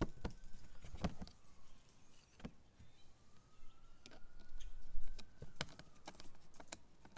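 Plastic side access cover of an inverter generator being pressed back into place: a few sharp plastic clicks and knocks, the biggest cluster in the first second, then scattered ones later. A faint high whine slowly rises and falls behind them.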